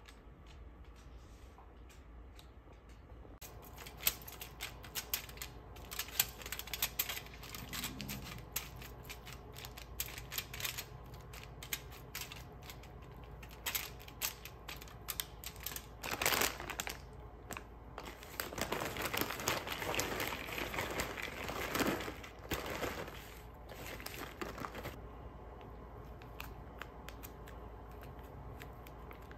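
Food-prep handling noises: aluminium foil crinkling and a metal fork clicking and scraping as cooked salmon is flaked apart, then plastic salad packaging rustling and a dressing packet being torn and squeezed open. A low steady hum runs underneath.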